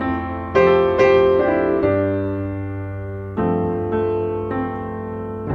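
Background piano music: a slow piece of notes and chords struck and left to ring out.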